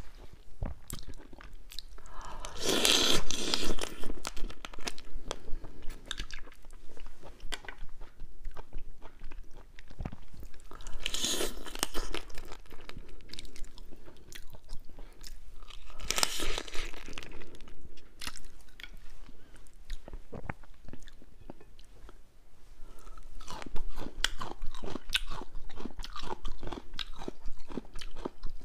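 Close-miked eating of spicy marinated crab: crab shell crunching and cracking between the teeth and fingers, with wet chewing. There are a few louder stretches about three, eleven and sixteen seconds in, and denser crunching in the last few seconds.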